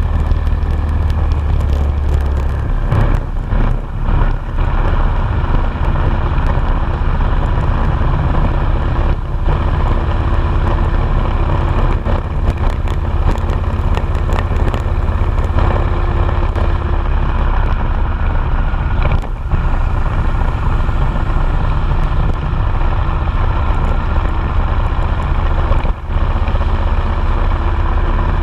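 Motorcycle riding at road speed, heard from an on-board camera: the engine runs steadily under heavy wind rumble on the microphone.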